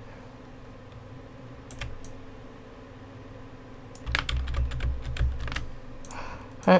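Computer keyboard keystrokes: a couple of isolated key taps, then a quick run of keypresses about four seconds in.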